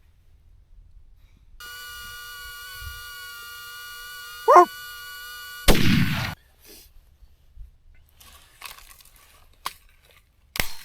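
A single rifle shot about six seconds in, a loud crack with a short echoing tail. It is taken at a coyote. Just before it a steady, slightly wavering tone plays for a few seconds, with a brief loud yelp rising and falling in pitch just before the shot, and light clicks follow.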